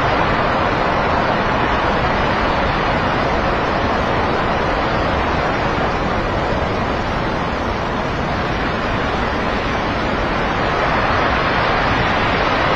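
Steady roar of a landslide, with rock and debris pouring down a mountainside.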